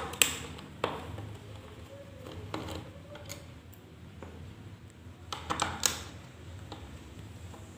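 Screwdriver working the small screws on the plastic back panel of a Bluetooth soundbar: a few light clicks and scrapes, with a cluster of them about five seconds in.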